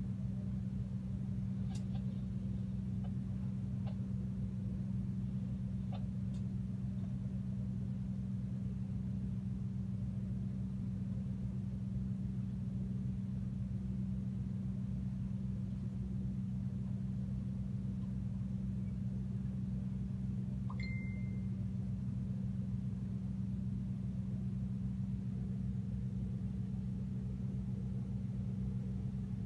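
Boat engine running steadily on board, a constant low drone. A few faint clicks come in the first few seconds, and a brief high tone sounds about two-thirds of the way through.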